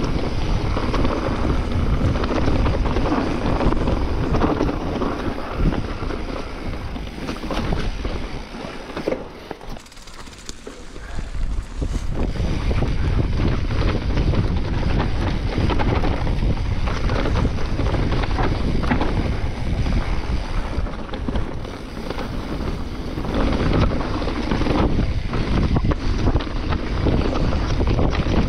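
Wind buffeting the camera microphone as a mountain bike rides down a forest trail, with tyres rolling over dry leaves and the bike knocking and rattling over bumps. The noise drops away for a couple of seconds about ten seconds in.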